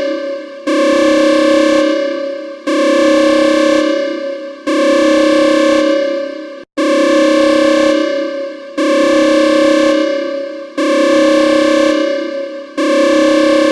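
Electronic alarm tone: a synthesized chime-like chord that sounds sharply about every two seconds and fades away, repeating over and over in a loop.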